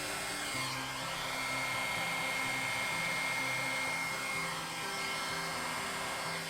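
Hair dryer running steadily on wet pour paint, a continuous airy blowing with a thin high whine in it, over soft background music with changing low notes.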